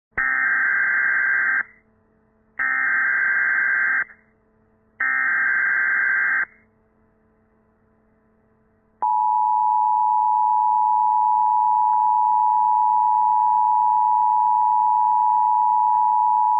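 Emergency Alert System SAME header: three short bursts of digital data tones, each about a second and a half long. After a pause comes the steady two-tone EAS attention signal, held for about eight seconds, announcing that an emergency message follows.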